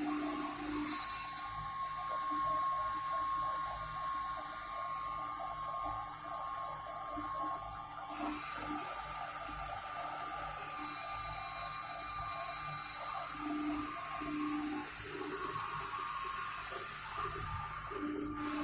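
Homemade CNC router's spindle running with a steady high-pitched whine as the bit cuts, the cutting noise growing brighter about eight seconds in.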